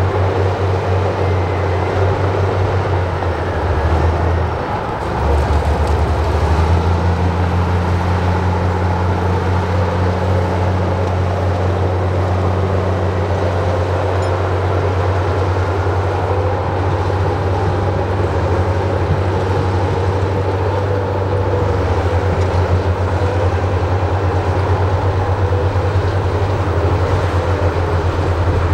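Heavy earthmoving machine's engine running under load with a steady low hum. It dips briefly about four seconds in, picks up again, and shifts pitch once more about 21 seconds in.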